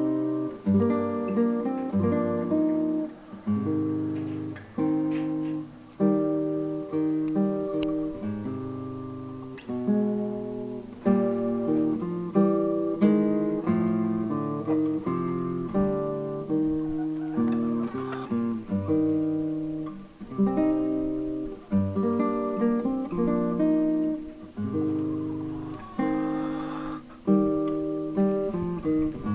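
Background music: an acoustic guitar picked and strummed, its chords struck and left ringing in a steady rhythm.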